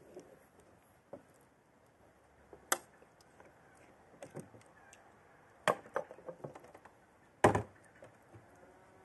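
Metal serving spoon knocking and scraping against a metal cooking pot and a china plate while food is dished out: three sharp clinks, about a third of the way in, past halfway and the loudest near the end, with softer taps between.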